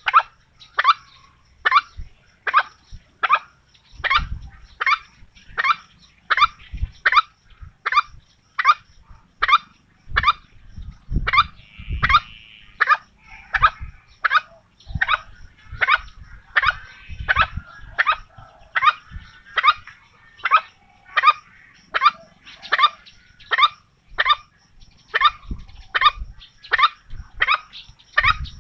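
Green junglefowl calling over and over: short, sharp, downward-sliding calls repeating at an even pace of about one and a half a second.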